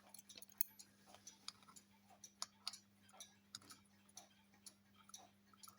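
Faint, irregular small metallic clicks and taps as the mainspring barrel and small parts of a wind-up shaver's clockwork are handled and fitted back in place, over a low steady hum.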